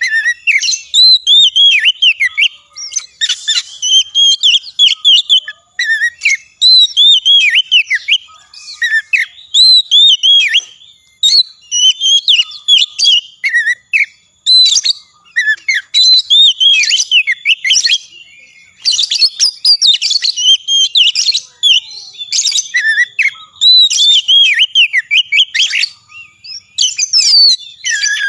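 Oriental magpie-robin (kacer) in full, non-stop song: rapid strings of varied whistled notes sliding up and down, delivered in phrases with brief pauses between them.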